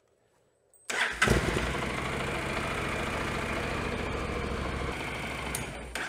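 Honda CTX700N's 670 cc parallel-twin engine starting about a second in, catching almost at once and idling steadily, then switched off near the end. It is run briefly after an oil change to fill the new oil filter with oil.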